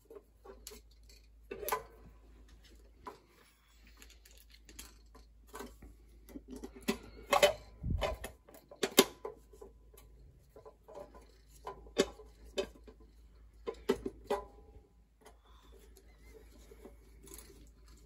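Scattered light clicks and taps of a sheet-metal cover being fitted back onto a boiler pressure control and fastened with a hand tool. The sharpest clicks come near the middle.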